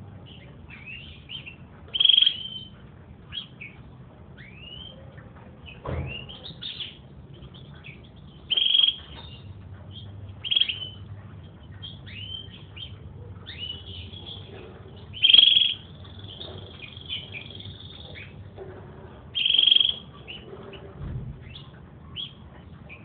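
Domestic canary singing: a string of short chirps and downward-sweeping whistled notes, with a few much louder notes every several seconds and a short rolling trill near the middle.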